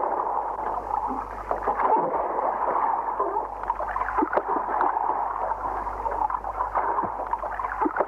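Underwater reef ambience: a steady hiss thick with small crackles and gurgles.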